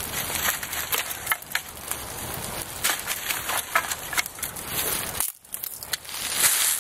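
Small wood campfire crackling, with frequent sharp pops as the kindling and feather sticks on a parallel fire lay burn.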